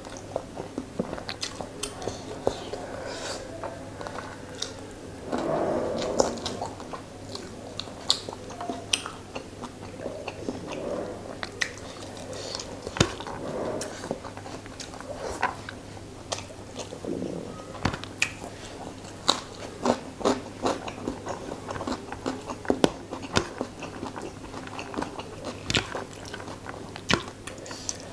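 Close-miked chewing and lip-smacking of a mouthful of rice and fried fish masala, eaten by hand, with many sharp wet mouth clicks scattered throughout. A denser, louder stretch of chewing comes about five to seven seconds in.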